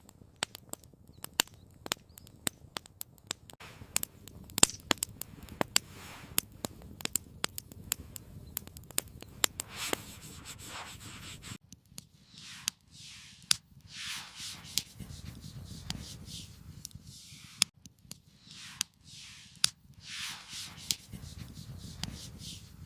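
Campfire crackling with frequent sharp pops over a soft hiss. About halfway in it gives way to repeated scraping and rubbing strokes, roughly one a second, with only a few pops.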